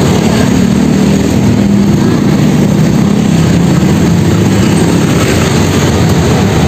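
Motorcycle engine running steadily at low speed in slow, dense traffic, with the engines of surrounding cars and motorcycles mixed in.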